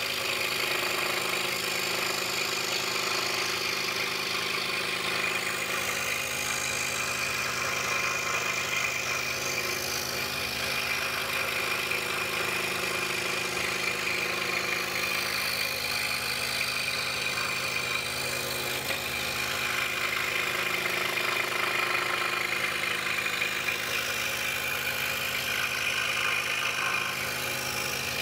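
DeWalt scroll saw running steadily, its reciprocating blade cutting a wooden puzzle blank, with a steady motor hum under the hiss of the cut.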